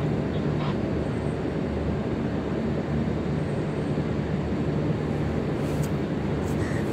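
Steady low rumble and hum of a cargo ship's machinery while it is undocking, with a few faint short clicks near the end.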